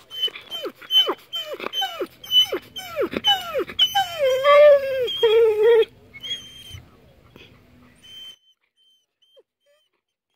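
Greyhound whining: a quick series of short whines that each drop sharply in pitch, then a longer, steadier whine about four seconds in, stopping about six seconds in.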